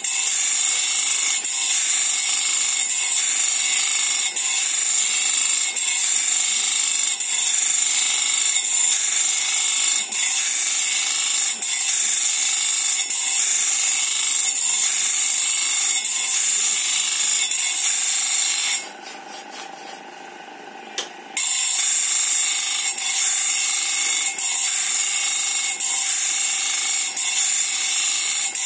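Electric bench grinder's abrasive wheel grinding the teeth of a sawmill band saw blade: a loud, steady, high grinding hiss with a faint regular beat about once a second. Near two-thirds of the way through the grinding drops away for about two seconds, then starts again abruptly.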